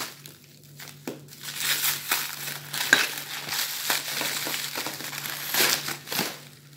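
Plastic stretch wrap and crumpled brown packing paper crinkling and rustling as the film around a package is cut with a knife and pulled apart by hand. The crinkling is sparse at first and grows busier about a second in.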